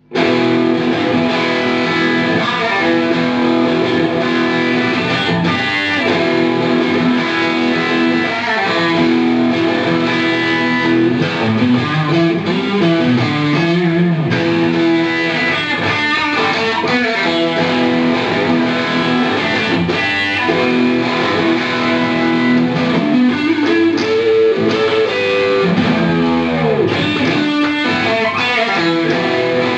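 Electric guitar, a Suhr Classic Antique Stratocaster-style guitar, playing a melodic lead with held notes and string bends that glide up and down in pitch.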